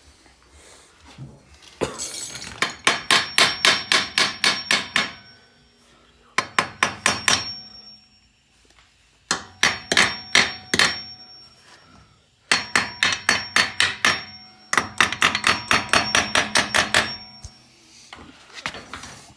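Pneumatic impact wrench hammering in four bursts of rapid, evenly spaced knocks on a seized brake bolt that will not break loose even at the gun's highest setting.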